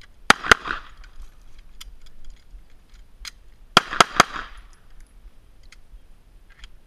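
Semi-automatic pistol firing two quick shots, then about three seconds later three more in rapid succession, each shot trailing a brief echo. Faint clicks sound between the groups.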